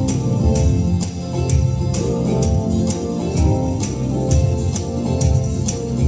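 Upbeat gospel music playing with a steady beat: sharp high percussion strikes about twice a second over bass and held chords.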